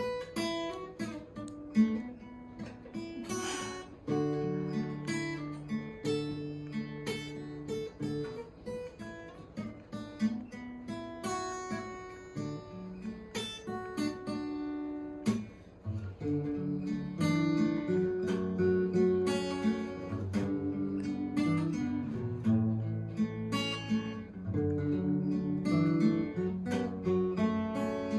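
Acoustic guitar being played: a picked melody over chords, the plucked notes ringing out. The playing grows fuller and a little louder from about halfway through.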